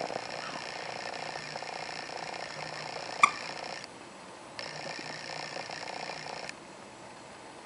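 A sun conure tussling with a plush toy: faint scuffling and one short, sharp squeak about three seconds in. Under it runs a steady background hum that cuts out twice.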